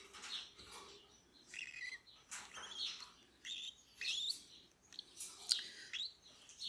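Cockatiel chicks giving a string of short, high begging chirps during hand-feeding, roughly one or two a second, some sliding in pitch.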